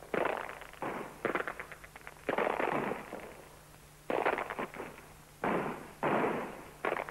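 Repeated volleys of crackling gunfire, each burst starting suddenly and dying away within about a second, every one to two seconds, over a faint steady hum.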